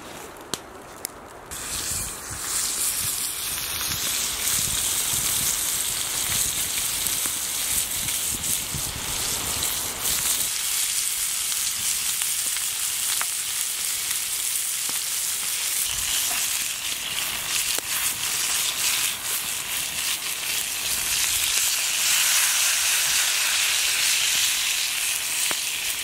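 Sausages and asparagus frying in a cast iron skillet over a campfire: a steady sizzling hiss that comes up about two seconds in, with scattered small pops.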